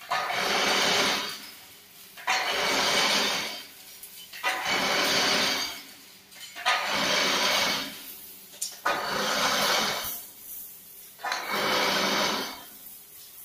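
Chain-link fence making machine running in repeated cycles: a harsh mechanical whirring of about a second and a half, then a short lull, about every two seconds, six times over.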